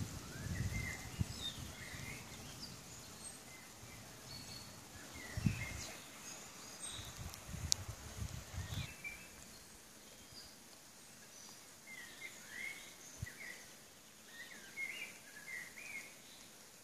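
Songbirds singing and calling in spring woodland: many short chirps and warbled phrases from several birds throughout. Low rumbles, like wind or handling on the microphone, come and go in the first half.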